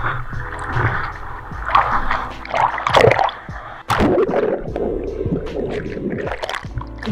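Whitewater rushing and splashing over a board-mounted action camera in its waterproof housing as a surfer pushes through a small wave; about four seconds in the board goes under and the rush turns muffled and gurgling.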